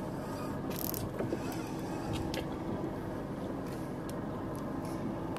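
A saltwater fishing reel on a bottom-fishing rod being cranked by hand, its gears ticking and creaking, over a steady low hum of a boat motor.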